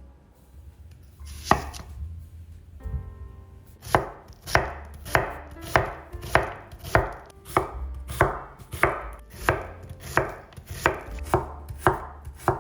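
Knife chopping on a cutting board: one cut about one and a half seconds in, then from about four seconds a steady run of cuts, nearly two a second.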